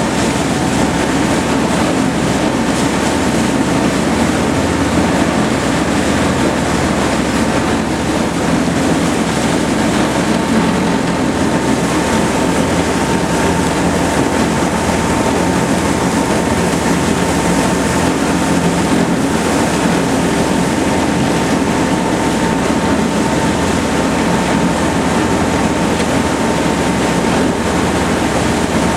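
Steady mechanical running noise, a dense rumble with a constant thin hum riding above it, unchanging throughout.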